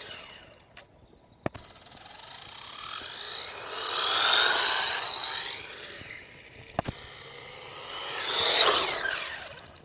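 Wltoys 12428 RC truck's electric motor and gears whining as it is run at full throttle on its stock 1500 mAh 2S battery, the whine rising and falling in pitch in two runs, with a sharp click before each.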